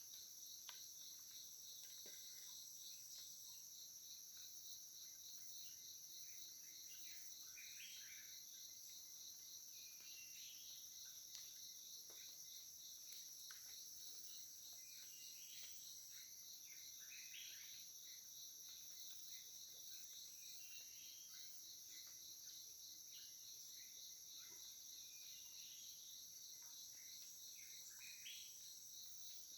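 Faint, steady chorus of insects: several high-pitched continuous buzzing drones, one of them a fast trill. Occasional short chirps are scattered through it.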